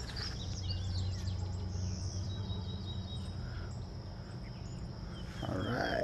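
Outdoor ambience: a steady high insect buzz, with small birds chirping in short runs over a low rumble. Near the end comes a brief, louder call.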